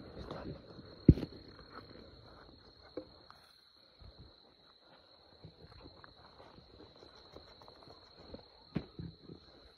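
Night insects, likely crickets, keeping up a steady high-pitched trill, with footsteps and rustling on the ground. There is a sharp knock about a second in, the loudest sound, and a smaller one near the end.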